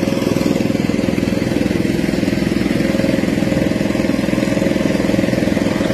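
Small motorboat's engine running steadily under way at close range: a loud, fast, even putter with a steady hum over it.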